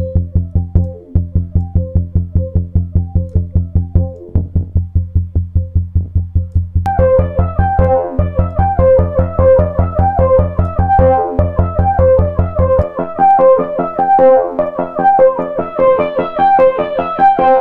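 A looping synth pattern, low bass notes under a repeating melodic line, playing through the iZotope Trash 2 distortion plugin while its settings are tweaked. The top end is cut off at first and opens back up about seven seconds in, and the bass drops out for the last few seconds.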